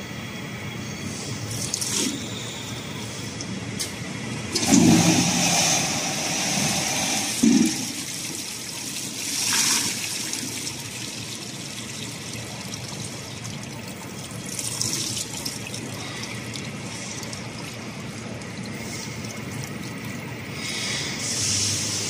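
Jerrycan washing machine spraying water from its nozzles into a row of upturned plastic jerrycans: a steady rush of water with several louder surges of spray. Two low clunks come about five and seven and a half seconds in.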